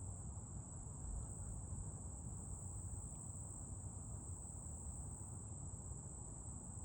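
A steady, high-pitched insect chorus with no break, over a low rumble of background noise.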